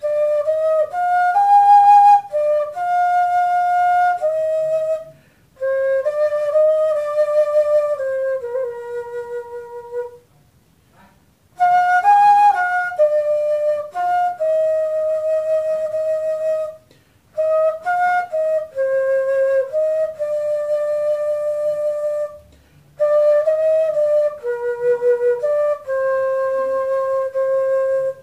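Homemade transverse flute (fife) made from 25 mm PVC pipe, tuned to F major, playing a slow melody of held notes in phrases, with short breath pauses between them.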